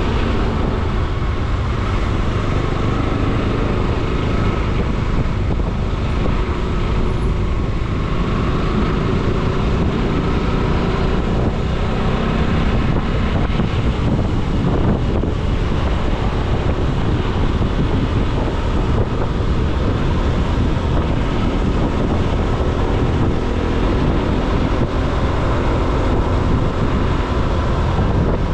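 Motorcycle engine running steadily on the move, mixed with wind noise on the microphone: an even, unbroken low rumble.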